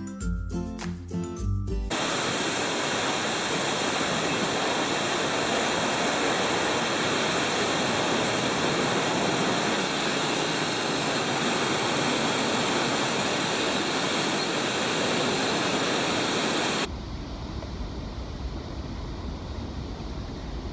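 A brief stretch of background music, then the loud, steady roar of a large waterfall. About four seconds before the end it cuts to a quieter, deeper rumble.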